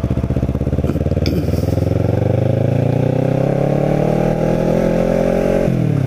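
Kawasaki Ninja 650R's parallel-twin engine accelerating under throttle, its pitch rising steadily, then dropping sharply near the end as the rider shifts up a gear.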